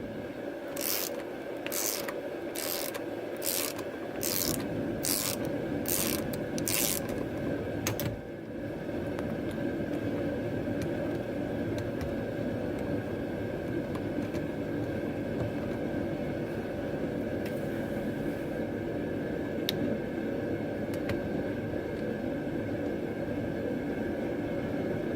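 Socket ratchet clicking in about seven short strokes roughly a second apart as a 13 mm socket on extensions loosens a nut, then stopping after about seven seconds. A steady hum follows.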